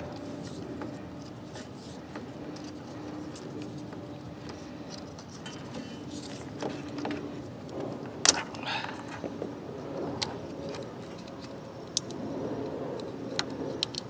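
Handling noise from work on a lawn tractor's wiring harness: rustling and small clicks as wires, a plastic connector and electrical tape are handled, with a sharp click about eight seconds in. A faint steady hum lies underneath.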